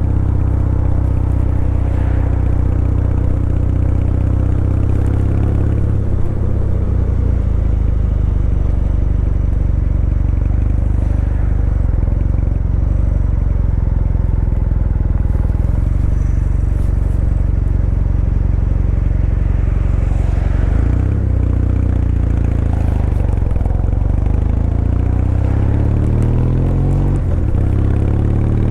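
Kawasaki W800's air-cooled parallel-twin engine running steadily under way. Near the end its pitch rises in steps as the bike accelerates.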